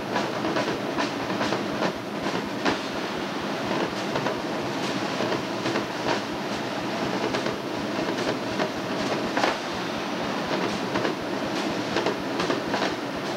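Marching drum line playing: snare, tenor and bass drums in a dense, busy pattern of rolls and sharp accented hits.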